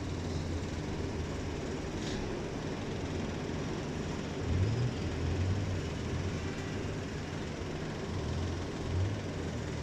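Steady low mechanical rumble, swelling louder about halfway through and again near the end, with a faint click about two seconds in.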